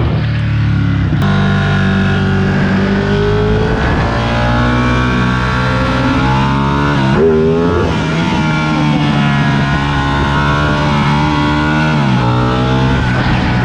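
Sport motorcycle engine running under way, its revs rising and falling, with a sharp dip and climb about seven seconds in and a drop near the end.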